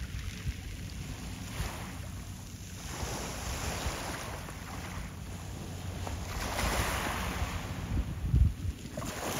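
Wind buffeting the microphone in uneven gusts, with waves washing in rising and falling swells; a strong gust hits the microphone near the end.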